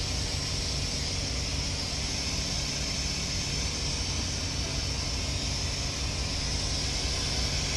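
Steady hiss of compressed air leaking from a truck's air-operated engine fan clutch, over a steady low hum. The leak is at the base of the clutch, which the driver takes to mean the fan clutch itself is bad.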